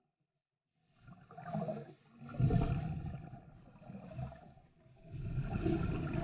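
Scuba diver breathing out through a regulator underwater: rushes of exhaust bubbles gurgling, three in a row after about a second of near silence, heard through the underwater camera.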